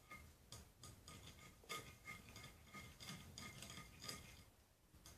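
Stirring utensils scraping and tapping on a plate while mixing soap and salt: a faint, irregular series of small clicks and scrapes, about two a second, each with a light ring.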